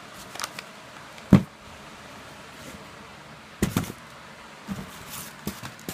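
Cardboard firework cake boxes being handled and set down: a scattering of knocks and thumps, the loudest about a second and a half in and a quick pair a little before four seconds.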